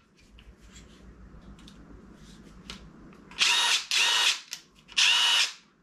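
DeWalt DCF887 brushless impact driver spinning free with no load in three short trigger pulls about half a second each, a steady high whine from the motor, after a few light handling clicks.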